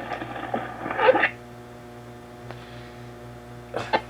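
Zenith AA5 tube radio's speaker: a fading snatch of broadcast sound, then a steady mains hum with a ladder of even overtones as it sits between stations. There is a single click about halfway and a couple of short crackles near the end.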